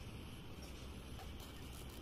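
Quiet outdoor background: a steady low rumble and faint hiss, with a few faint scattered ticks.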